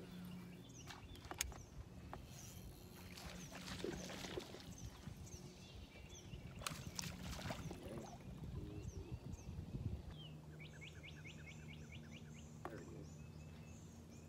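Open-air ambience on a fishing boat: a steady low hum under scattered clicks and rustles of rod and reel handling. About ten seconds in there is a quick run of short chirping calls, like a bird.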